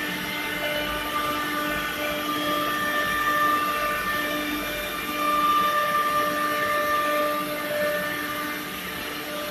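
ATC CNC wood router at work: the spindle runs with a steady whine of several tones over a continuous rushing noise while the gantry moves the head across the sheet.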